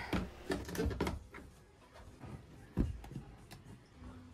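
Overhead deck hatch on a sailing catamaran being pulled shut and its latch handles turned: a few knocks and clicks, the loudest a little under three seconds in.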